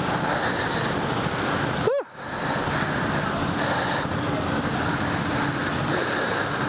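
Indoor go-kart engine running as the kart drives slowly through the pit area, with a rush of wind noise on the helmet-mounted microphone. The sound dips sharply for a moment about two seconds in.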